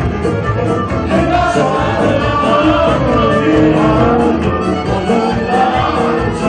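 Live Romani band playing dance music, with violin and electric guitar among the instruments.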